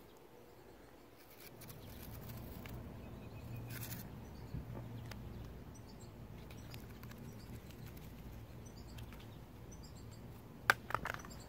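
Outdoor background with a steady low rumble and faint bird chirps, broken near the end by a few sharp clicks, the first the loudest.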